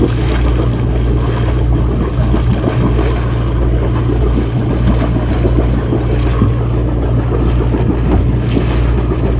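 A sportfishing boat's engine running steadily with a constant low hum, under wind and water noise.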